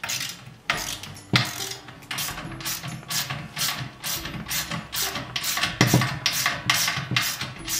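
A 10 mm socket ratchet tightening a nut, its pawl clicking in quick repeated strokes, about three a second, as the handle is worked back and forth.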